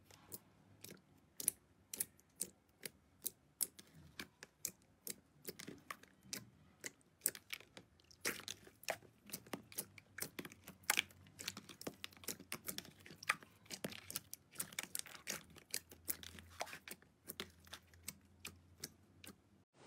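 Fingers pressing and kneading a large tub of clear slime: a run of small wet pops and clicks, several a second.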